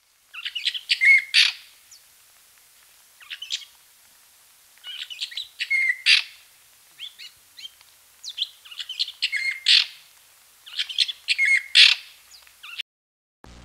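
Fruit bats (flying foxes) giving high-pitched calls in clusters every two to three seconds. The calls stop abruptly shortly before the end.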